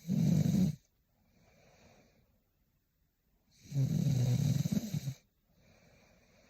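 A sleeping young woman snoring: two loud snores about three and a half seconds apart, the second longer, each followed by a softer breath.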